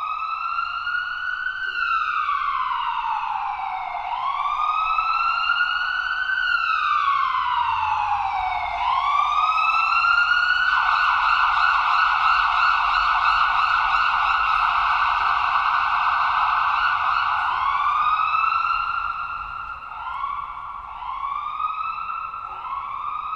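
Electronic ambulance siren cycling through its tones: a slow wail rising and falling about every four to five seconds, then a rapid warble from about ten seconds in, then short rising whoops about once a second near the end.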